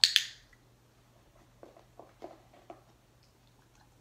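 A sharp, loud training marker, two quick snaps close together, just as the dog touches its nose to the trainer's hand, then a few faint ticks of the dog's mouth at the hand taking and eating its treat.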